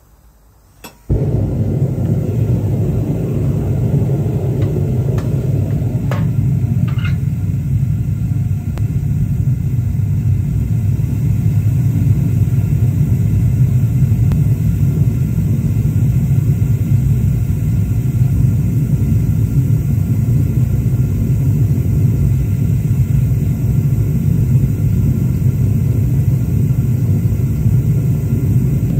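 Bottled-gas burner of a homemade keg foundry furnace catching about a second in, with a sudden onset after a click, then burning with a steady low rumble as the furnace heats up.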